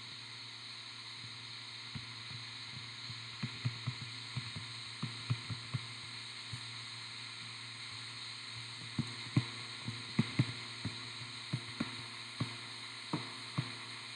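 Irregular soft taps and clicks of a stylus on a touchscreen during handwriting, in two clusters, over a steady low hum of room noise.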